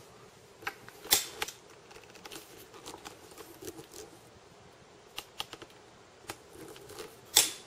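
Handling noise: a handful of sharp, scattered clicks and knocks, with a loud one about a second in and the loudest near the end.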